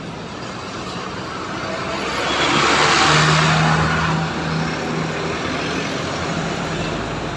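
Large intercity buses pulling past at close range: engine and tyre noise swells to its loudest about three seconds in, with a steady low engine hum, then settles into a level rumble.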